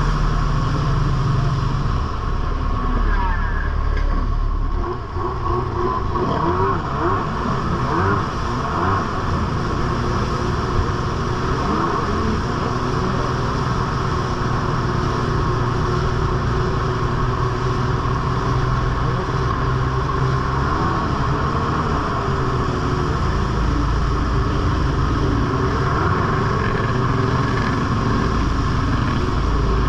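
Jet ski engine running steadily at speed, with water rushing and spraying off the hull. The level dips briefly about five seconds in.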